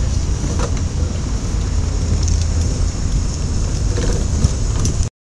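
Wind buffeting the camera's microphone: a heavy low rumble under a steady hiss, cutting off abruptly near the end.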